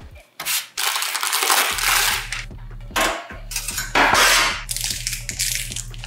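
Small metal computer screws rattling and clinking in several loose bursts, over background music with a steady repeating bass line.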